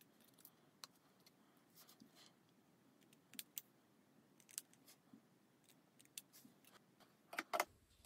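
Faint, separate snips of small craft scissors cutting a V-shaped flag into the end of a narrow cardstock strip, with a couple of slightly louder clicks near the end.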